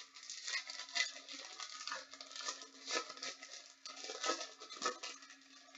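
Crinkling and rustling of trading-card pack wrappers being torn open and cards being handled, in irregular bursts over a faint steady hum.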